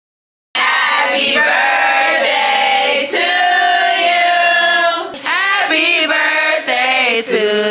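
A group of women singing a birthday song together in loud, held notes, starting suddenly about half a second in.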